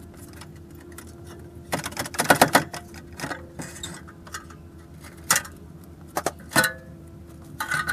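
Metal clinks and clatter from hand tools and fasteners during work on a car's front end: a quick run of knocks about two seconds in, then single clinks, over a steady low hum.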